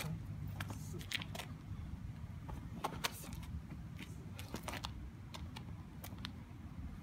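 Scattered short scuffs and swishes from a Baguazhang practitioner's footwork on asphalt and his clothing as he moves through a form, over a steady low rumble.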